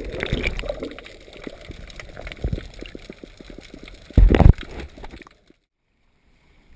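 Muffled underwater sound heard through a submerged action camera's housing: water sloshing and gurgling with small crackles, then a loud muffled burst about four seconds in. The sound cuts off at about five and a half seconds, leaving near silence.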